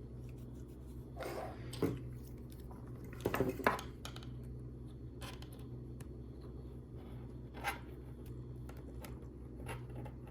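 Plastic LEGO pieces clicking and clattering as they are handled and pressed together: a few short clusters of clicks and single ticks over a steady low hum.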